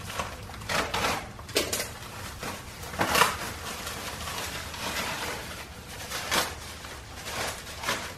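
Clear plastic wrapping crinkling and rustling in the hands as it is pulled off a part, in irregular bursts about six times.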